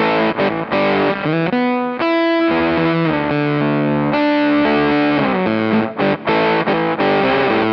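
Electric guitar played through a KingTone MiniFuzz v2 fuzz pedal, with the guitar's tone knob rolled back to take the harsh highs out of the fuzz. It plays quick single-note lead lines with a sustained note about two seconds in.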